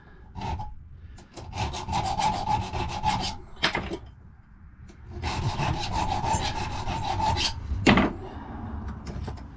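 A hand file cutting a lever step into a safe key's bit, in quick back-and-forth strokes. It comes in two runs of about two seconds each, and each run ends with a single sharp knock.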